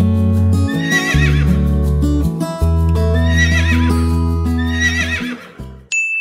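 Background music with a steady bass line, with a horse whinnying three times over it. The music cuts off near the end.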